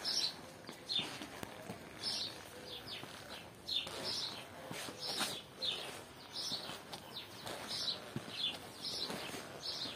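Small birds chirping, short high chirps repeating every half second to a second.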